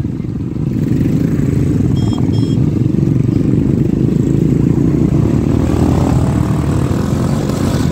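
A motor vehicle's engine running steadily with a rough low rumble, with two short high beeps about two seconds in.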